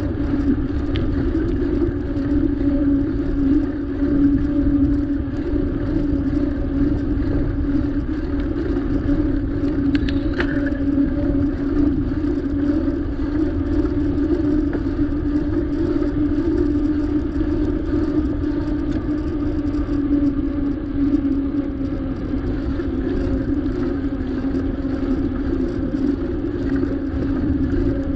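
Steady hum and low rumble of riding along on a bicycle, the road and wind noise picked up by a camera carried on the bike, unchanging throughout.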